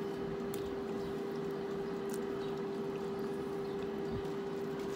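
A steady hum at one pitch, unchanging throughout, with a few faint clicks.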